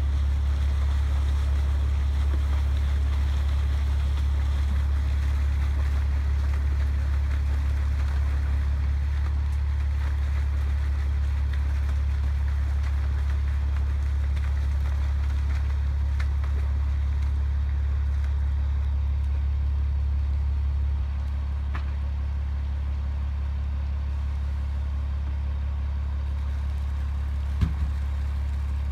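Fish-stocking tanker truck running steadily as it pumps water and fish through its discharge pipe into a pond: a steady low drone with water pouring and splashing, dropping slightly in level about two-thirds of the way through. A single short knock near the end.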